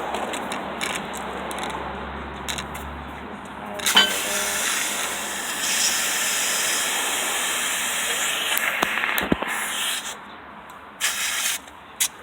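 Compressed air hissing steadily from a shop air line for about six seconds. It starts with a sharp click about four seconds in and cuts off near the end.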